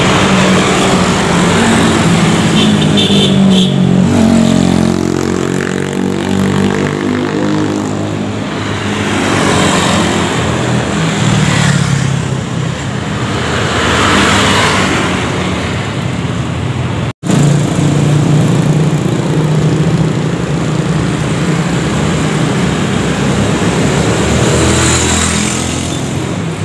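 Road traffic passing close by: cars and motorcycles driving past one after another, each engine note swelling and fading as it goes by. The sound cuts out for an instant about two-thirds of the way through.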